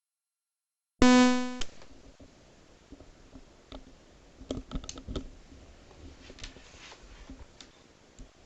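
A short, loud electronic buzz tone about a second in, then faint scattered clicks, as of a computer mouse or keyboard.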